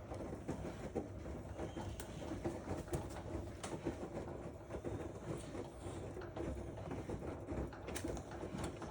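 Washing machine running with a steady low rumble, under irregular light taps and scrapes.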